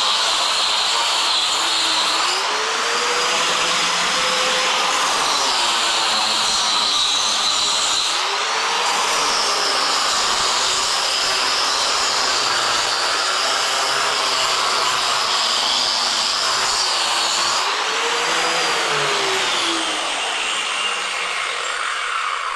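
Angle grinder with a cup grinder wheel grinding a floor, a loud steady grinding whine. The motor's pitch rises and falls back three times, and slides down near the end.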